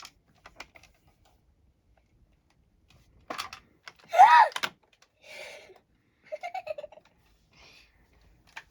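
A few faint clicks, then a short, loud vocal exclamation rising and falling in pitch about four seconds in, followed by breathy giggling and a click near the end.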